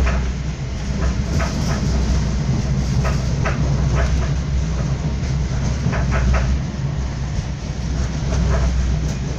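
Passenger train running at speed, heard from inside the carriage: a steady low rumble with scattered clicks and knocks, including a quick run of three about six seconds in.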